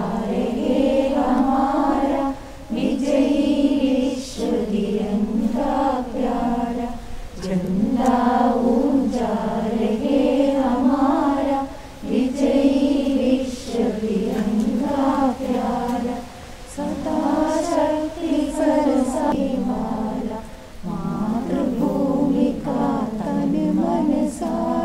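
A group of voices singing together, in held phrases of about two seconds with short breaks between them.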